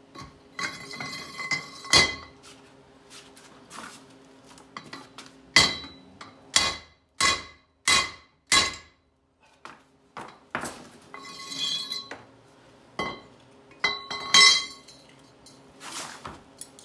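Ringing metal-on-metal blows driving a rear wheel bearing down onto a Nissan Titan axle shaft, with scraping and rattling of steel between strikes. There is a run of five blows about one every 0.7 s in the middle and a few more near the end. The bearing is not yet fully seated.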